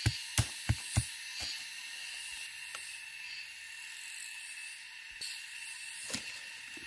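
A wooden stake being pounded into the ground: four sharp knocks in the first second, about three a second, then fainter single knocks later on. A steady high-pitched insect chorus runs underneath.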